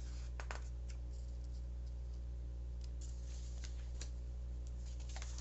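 Paper pages of a picture book being handled and turned: a few short, crisp rustles and clicks, about half a second in, around three to four seconds in and again near the end. They sit over a steady low electrical hum.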